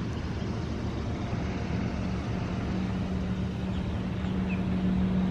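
A motor engine running with a steady low hum, growing slowly louder as it draws nearer.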